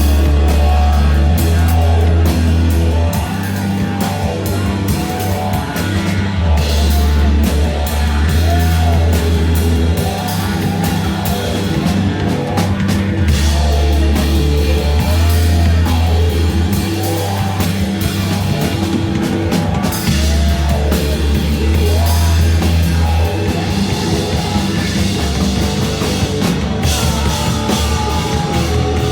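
Live heavy rock band playing loud, with a heavy bass line, drum kit and vocals.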